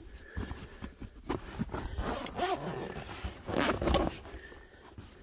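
Zipper on the big pocket of a fabric survival-kit bag being pulled open in several short strokes, the loudest about four seconds in, with the scrape of the bag's fabric being handled.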